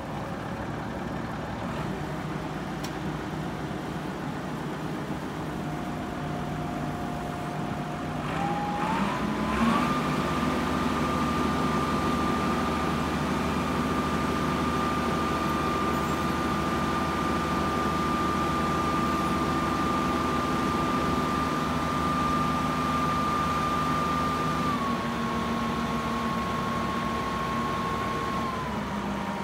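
Kalmar DC13-600 heavy forklift's diesel engine running at idle, then speeding up in steps about eight to ten seconds in and holding the higher revs with a steady whine as the mast lifts the forks. The revs ease down a step near the end.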